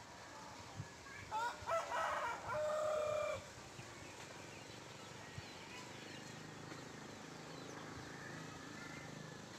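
A rooster crowing once, about a second in, its call ending in a long held note.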